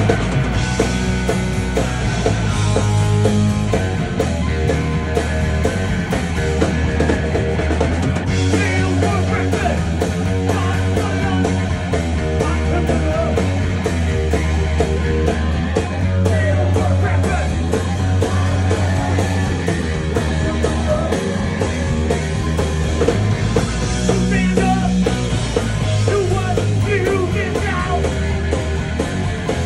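Live rock band playing: a man singing lead over electric guitar and drums.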